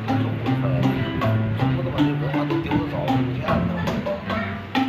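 A traditional Vietnamese band playing, with held low plucked or bowed notes and sharp woody percussion clicks keeping the beat.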